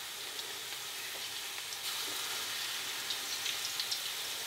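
Grated-potato latkes frying in hot oil: a steady high sizzle that grows louder about two seconds in, with small crackles and pops.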